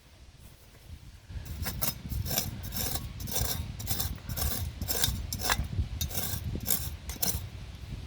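Hand coffee grinder crushing beans, a rhythmic grinding rasp at two to three strokes a second that starts about a second and a half in.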